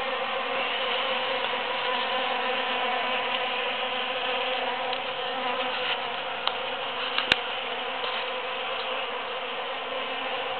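Bees buzzing steadily as they forage in large white cactus flowers: a dense, many-voiced hum. A sharp click comes about seven seconds in.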